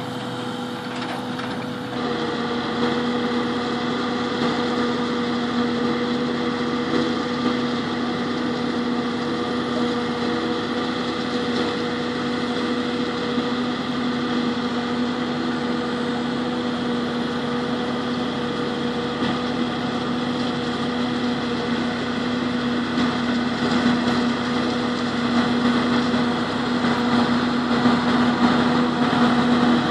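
A self-propelled forage harvester chopping maize for silage, with the tractor and trailer running beside it. The engines drone steadily under a constant pitched whine, and the sound grows somewhat louder in the last few seconds.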